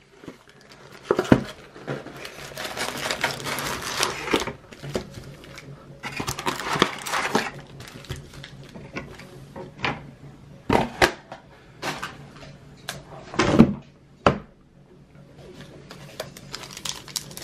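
A box of trading cards being opened by hand: packaging rustles and tears in stretches, then a few sharp knocks and clicks in the second half.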